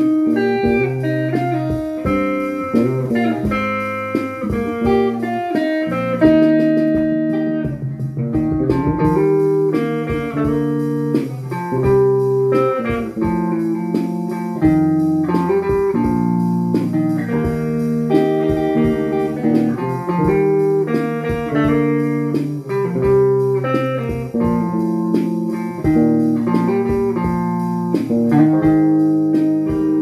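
Guitar band music: plucked guitar playing a melody over chords and a bass line.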